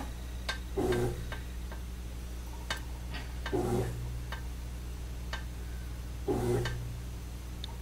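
Washing machine running in the background: a steady low hum with a surge of sound about every three seconds as it churns, plus scattered faint clicks.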